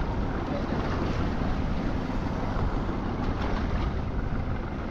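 Steady wind rumbling on the microphone over the wash of sea water around a small boat.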